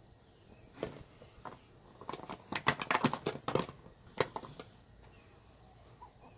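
Metal pipe tobacco tins knocking and clicking against each other as they are rummaged through in a storage box, with a quick run of clatters in the middle.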